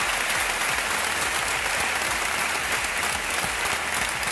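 Audience applauding steadily: many hands clapping in a dense, even wash of claps.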